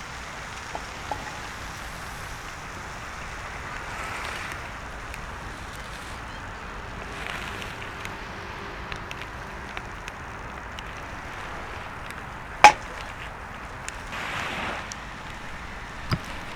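Bonfire burning with a steady hiss and scattered crackles, with one loud sharp pop about twelve seconds in and a couple of smaller snaps.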